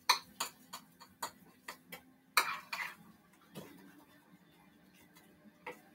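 A kitchen utensil clicking and knocking against a bowl as waffle batter is mixed. A run of sharp clicks, about two or three a second, is followed by a louder clatter about halfway through and a single knock a second later.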